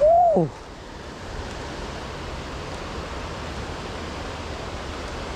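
Steady rush of flowing creek water, opening with a short, excited exclamation whose pitch rises and then falls.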